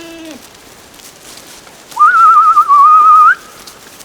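A person whistling one loud, warbling note about a second and a half long, starting about two seconds in and rising sharply at the end, used to call the goats.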